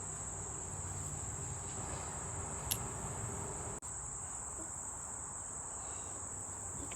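Insects calling in a steady, unbroken high-pitched drone, with a single brief click a little before the middle.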